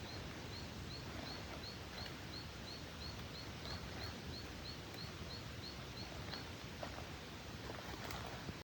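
Forest background noise with an animal's high, short chirp repeated about three times a second, stopping about six seconds in, and a few soft clicks.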